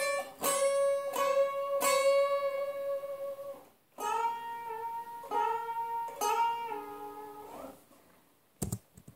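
Semi-hollow electric guitar played clean: a note held for about three and a half seconds while other notes are picked over it, then a second phrase of picked notes with a small upward string bend. A couple of sharp knocks come near the end.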